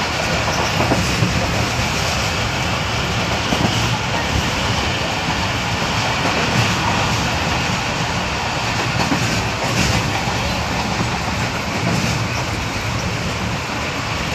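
Passenger train running at speed, heard from inside the carriage: a steady rumble and rush of wheels on rails.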